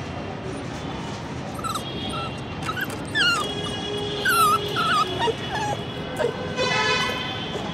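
Puppies yipping and whimpering in short, high squeaks while play-fighting, with a cluster of calls from about two to five seconds in. Steady background music runs underneath.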